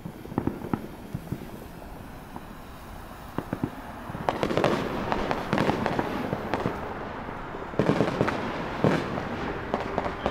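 Ground firework going off: scattered sharp pops at first, then dense rapid crackling and popping from about four seconds in, with a few louder cracks near the end.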